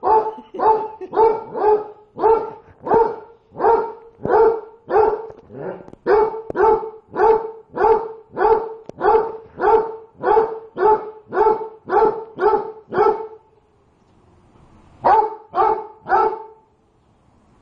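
A dog barking over and over at its hot food, about two barks a second. The barks stop about thirteen seconds in, and after a short pause three more follow near the end. The owner takes the barking as the dog complaining that the food is too hot to eat.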